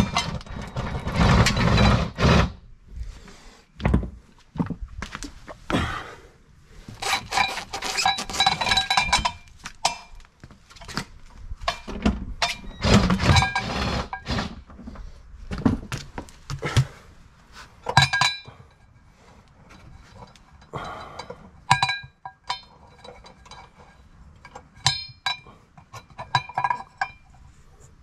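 A power driver turns the spare-tire winch of a Kia Telluride for about two seconds as the spare lowers on its cable. After that come scattered metallic clinks and knocks, some ringing briefly, as the cable and its hook plate knock against the steel compact spare wheel.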